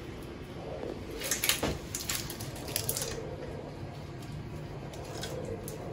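Soft clicks, crinkles and rustles of seasoning being added to and mixed into raw chicken pieces, a cluster about a second and a half in and another around three seconds in.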